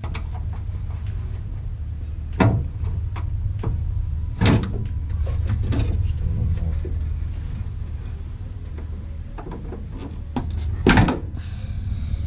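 A handful of sharp knocks and clunks from the body of a 1996 Dodge Dakota pickup as it is worked on during a teardown, the loudest about eleven seconds in, over a steady low rumble.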